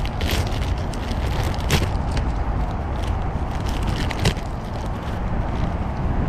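A clear plastic bag crinkling and rustling as it is handled and opened, with a few sharper crackles, over a steady low rumble.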